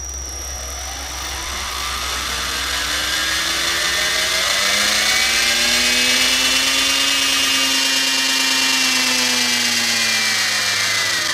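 Two small DC motors in a homemade friction drive, pressing on a bicycle's rear tyre, running with a whine that climbs in pitch as they spin the wheel up over the first six or seven seconds, then sinks slowly as they slow down toward the end.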